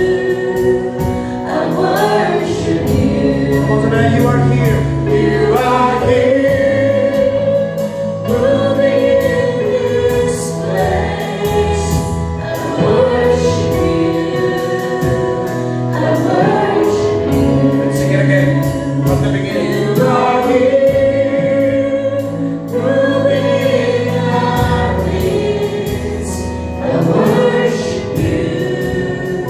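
Christian worship music: a group of voices singing a gospel song over sustained instrumental accompaniment with a steady beat.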